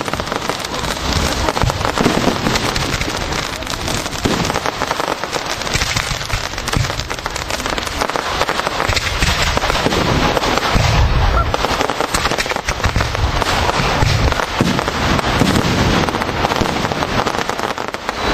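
A fireworks display: a dense, continuous crackle from crackling-effect fireworks, with deeper thuds now and then.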